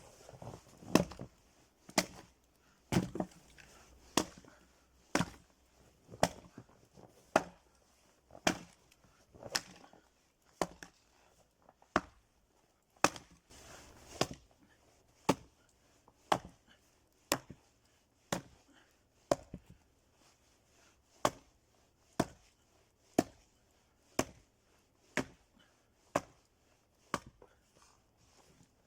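Firewood being split on a wood-splitting device into small pieces: a steady run of sharp chopping blows, about one a second.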